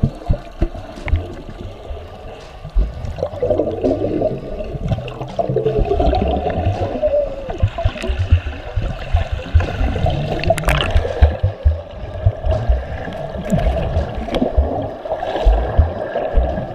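Sea water churning and bubbling around a swimmer's arm strokes, heard muffled from just under the surface, with many dull low thumps as the arms enter and pull through the water.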